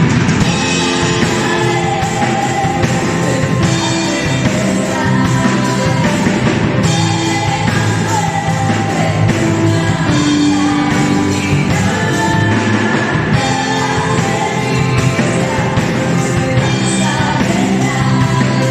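Worship song: singing over a loud rock-style band accompaniment that plays on steadily.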